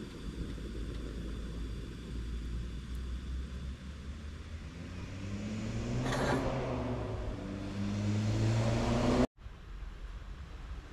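A car engine running over a steady low road rumble, its pitch climbing gradually as it accelerates from about five seconds in. It cuts off abruptly about nine seconds in, and the steady rumble then carries on.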